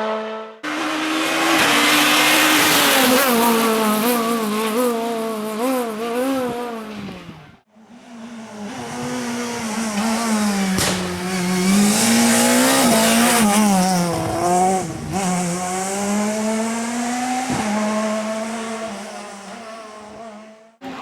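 Naturally aspirated four-cylinder rally car engines at high revs, their pitch climbing and dropping again and again through gear changes and corners. Three separate passes are joined by abrupt cuts, one just after the start and one about eight seconds in.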